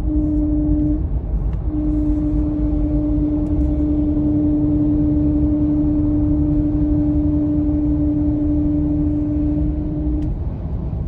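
Mercedes GLK making a steady, mid-pitched hum over a low rumble. The hum drops out briefly about a second in and stops again near the end, while the rumble carries on.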